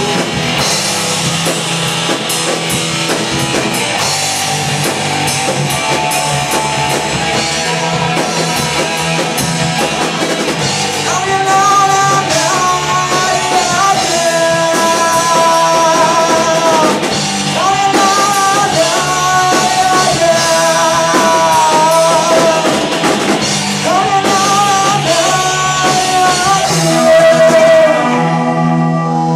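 Rock music with drums and guitar, and a singing voice that comes in about a third of the way through.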